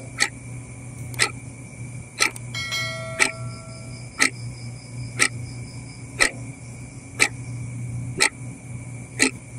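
A clock ticking steadily about once a second over a low steady hum, with a short chime of several tones about two and a half seconds in.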